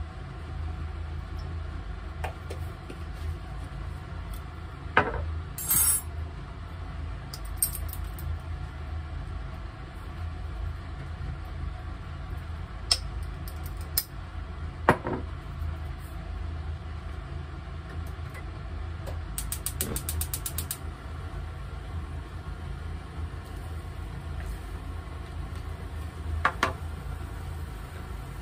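Kitchen handling sounds over a steady low hum: scattered clinks and knocks of a spoon, a glass jar and its clip-top lid. About two-thirds of the way through, a quick run of ticks lasting about a second and a half: a gas hob's igniter lighting the burner.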